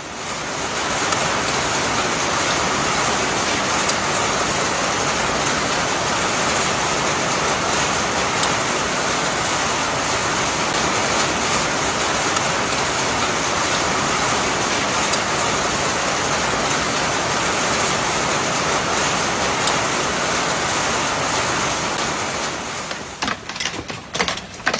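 Hail and rain pounding down in a dense, steady hiss with scattered sharp hits; near the end it thins out into separate hailstone impacts.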